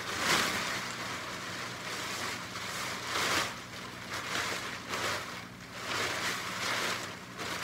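Thin plastic rain poncho rustling and crinkling as it is pulled on over the head and spread out, in several swells.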